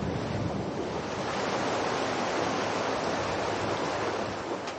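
Steady rush of a shallow canyon creek, easing a little near the end.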